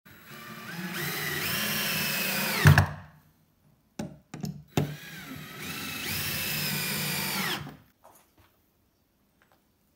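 Cordless drill driving screws into plywood: two runs of the motor whine, each rising in pitch as it speeds up and then holding, the first ending in a sharp loud knock as the screw seats. A few clicks and knocks fall between the two runs.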